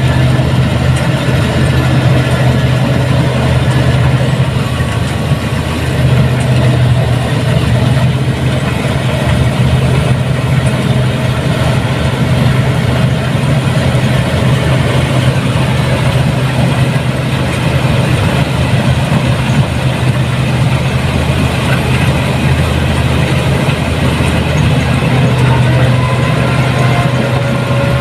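New Holland 8060 combine harvester running steadily, its engine giving a constant low hum.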